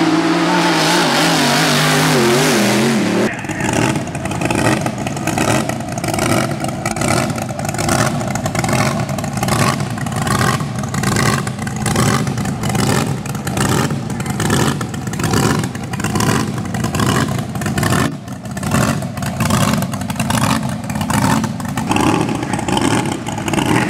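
Classic racing hydroplane's supercharged engine running hard at speed. The first few seconds are a loud roar wavering up and down in pitch. Then the sound cuts to a steady engine note broken by rapid, uneven pulses.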